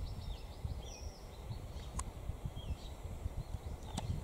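Small birds calling with quick high chirps, a run of them at the start and a few more later, over a low rumble on the microphone. Sharp clicks about halfway and again near the end.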